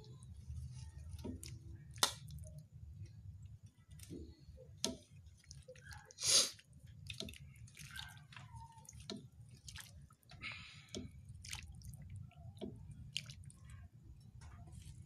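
Faint, irregular small pops and ticks over a low steady hum, from a pan of mudfish stew simmering on the stove. A couple of louder clicks come about two and six seconds in.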